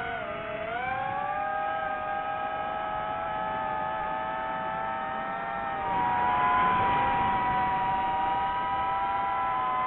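DJI FPV drone's motors and propellers whining in flight, the pitch shifting with the throttle; it steps up in pitch and gets louder about six seconds in.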